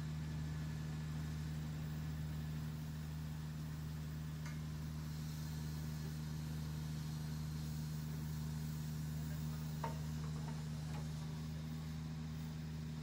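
Steady low machinery hum, with a few faint light knocks, mostly about ten seconds in.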